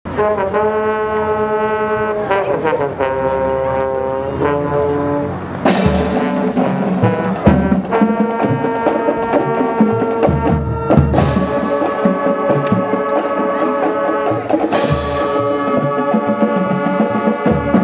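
Instrumental music with held, brassy chords that change every second or so, punctuated by a few sharp drum and cymbal hits.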